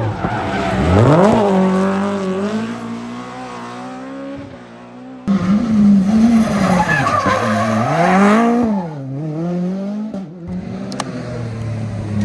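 Rally car engine revving hard, pitch climbing and dropping again and again through throttle lifts and gear changes, with tyre noise on the tarmac. About five seconds in, an abrupt cut to another car doing the same.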